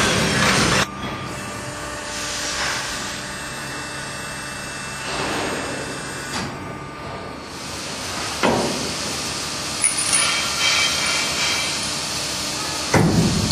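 Hydraulics of an A-Ward MiTilt container tilt unloader being worked by hand: a hissing whoosh about every three seconds, with a few short mechanical clicks.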